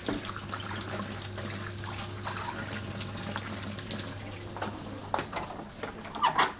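A tap running into a sink, with a steady low hum under it. A few sharp knocks near the end, the loudest about six seconds in.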